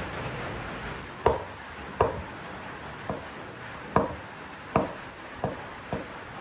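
Steady rain hiss, then a large kitchen knife chopping cooked food on a wooden cutting board: seven sharp chops at an uneven pace, about one every half second to one second.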